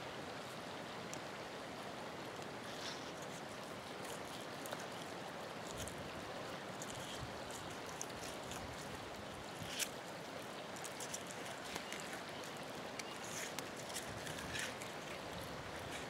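Steady rushing of flowing creek water, with faint scattered clicks and one slightly louder tick about ten seconds in.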